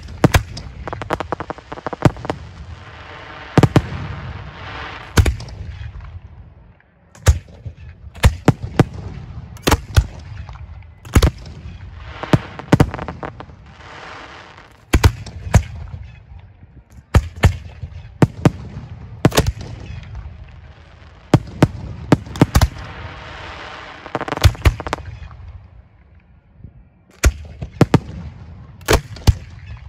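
Professional display firework shells firing from mortar racks close by: a rapid, irregular string of sharp booms, often in quick pairs and clusters, over stretches of hissing crackle, with a brief lull about seven seconds in.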